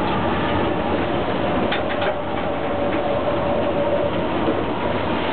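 In-cab running noise of an SNCF Z 5300 suburban electric multiple unit travelling along the line: a steady rumble with a faint steady whine, and a few short clicks about two seconds in.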